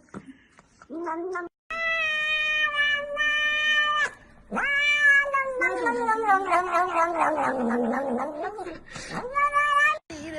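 Domestic cat yowling in long drawn-out calls, one of them held for several seconds and sagging in pitch, with a short call near the end.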